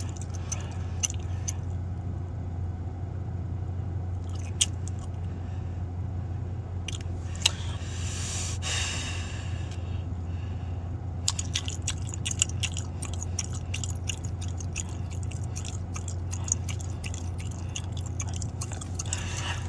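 Gum chewing close to the microphone, with wet smacking clicks that come thick and fast from about halfway through, over a steady low hum.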